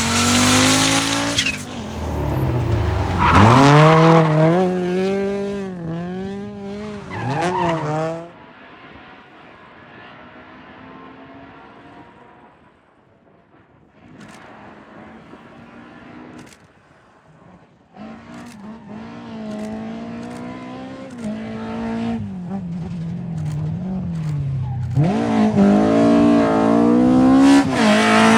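Historic rally car engines at full throttle, pitch rising and falling as they rev through gear changes and lifts. One car is loud at the start and fades after about eight seconds. After a quieter stretch, another car's engine builds up and is loud near the end.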